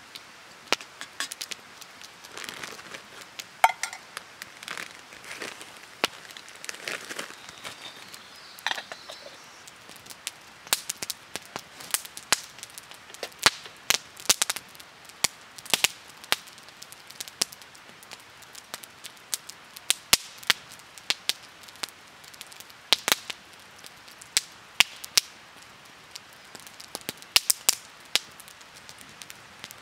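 Wood campfire crackling and popping, with sharp irregular snaps, several in some seconds and fewer in others.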